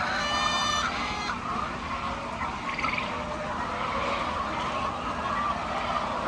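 A flock of chickens clucking and calling together, with one loud drawn-out call in the first second. A steady low hum runs underneath.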